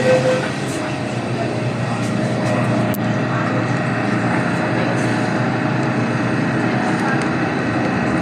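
MTR M-train electric multiple unit running, heard from inside the car: a steady rumble and rush of wheels on track, with faint steady tones from the traction equipment.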